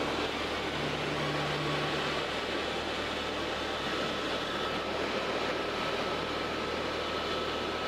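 Helicopter in flight heard from inside the cabin: a steady engine-and-rotor hum under a broad rushing hiss.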